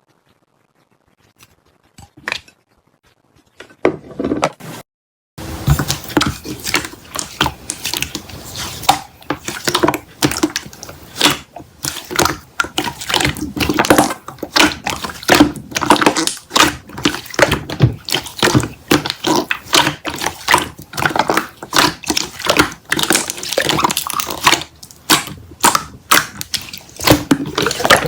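Near silence with a few scattered clicks, then from about five seconds in a dense, irregular run of clicking, tapping and scratchy rustling.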